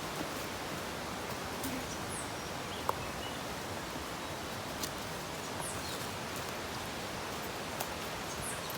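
Steady rush of a nearby creek, with a few faint high chirps and a sharp click about three seconds in.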